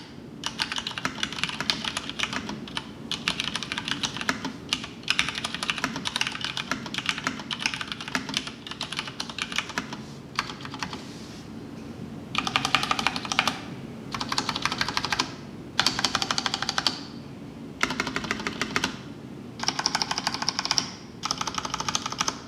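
Typing on a Filco Majestouch 2 mechanical keyboard with tactile, non-clicky Cherry MX Brown switches and PBT keycaps. Steady continuous typing for about the first half, then short runs of very rapid keystrokes, each about a second long, with brief pauses between them.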